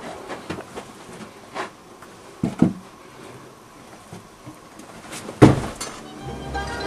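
A few scattered knocks and thumps, the loudest about five and a half seconds in with a short falling low tone, then music coming in near the end.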